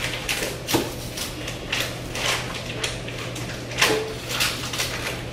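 Irregular rustling, clatter and knocks from hands working at a kitchen sink, over a steady low hum.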